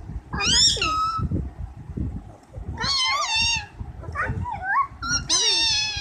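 Rose-ringed parakeet vocalizing in four short, high-pitched phrases that rise and fall in pitch, with low handling rumble between them.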